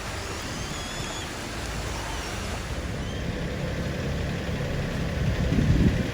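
Beach ambience: a steady wash of surf, with a low engine drone growing in over the second half and a loud low rumble near the end.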